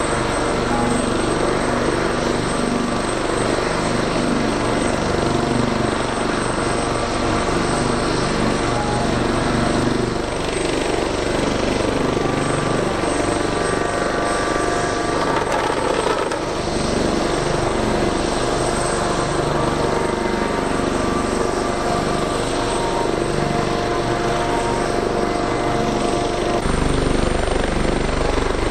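An AH-64D Apache Longbow and an OH-1 helicopter running on the ground, their twin turboshaft engines whining and rotors turning at a steady beat. A louder low rumble comes in near the end.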